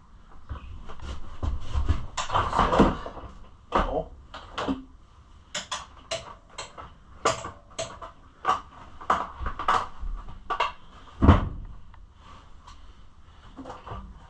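Parts and tools being handled while a dirt bike is put back together: a run of sharp clicks and knocks, a scraping rustle about two seconds in, and one loud thump about eleven seconds in.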